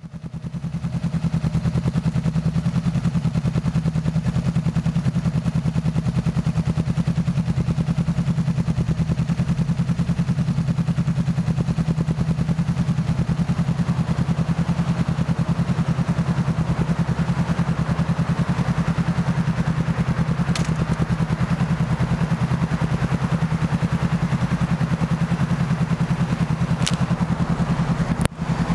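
A 2017 Honda CBR500R's 471 cc parallel-twin engine idling steadily through a Delkevic aftermarket exhaust. Near the end there is a brief crackle and dropout as the microphone cable is handled.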